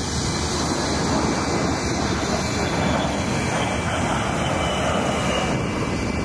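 Steady jet noise from an A-10 Thunderbolt II's two TF34 turbofan engines as the aircraft flies past.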